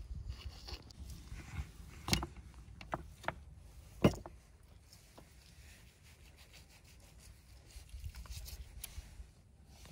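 Several sharp knocks and clicks, the loudest about four seconds in, over a low steady rumble.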